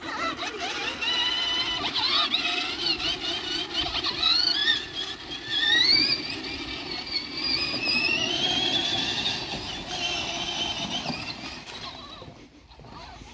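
High-pitched whine of the electric drive motors and gearboxes of a Huffy Torex kids' ride-on ATV being driven, wavering and climbing in pitch through the middle, over a low rumble of the wheels, then fading out near the end.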